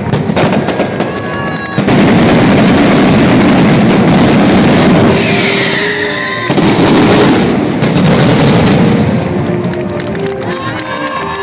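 Mascletà firecrackers going off in a dense, continuous rattle of bangs, with a brief let-up about six seconds in. Near the end the bangs die away and band music comes through.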